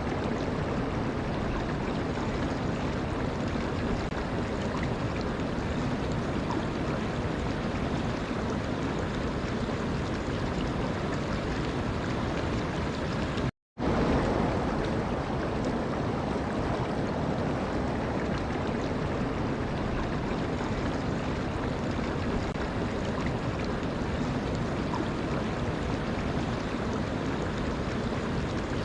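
Steady rushing of flowing water, an even wash with no distinct events. It cuts out completely for a split second about halfway through, then resumes a little louder.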